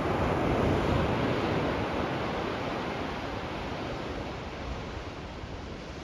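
Ocean surf on a beach: a wave breaks, loudest about a second in, then washes out and fades over the next few seconds.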